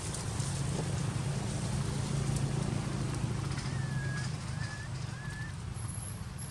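Outdoor forest ambience: a steady low rumble with faint rustles and clicks, and three short high chirps about four to five seconds in.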